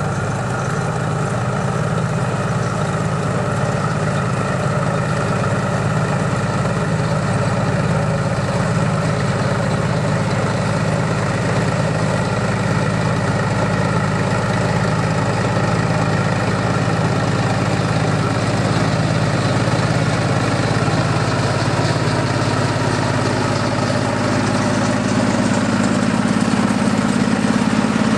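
Lombard auto-type tractor (antique tracked log hauler) engine running steadily at low speed, its note rising a little near the end.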